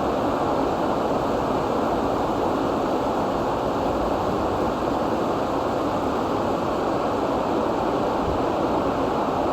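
Steady heavy rain: a dense, even hiss with no separate drops standing out.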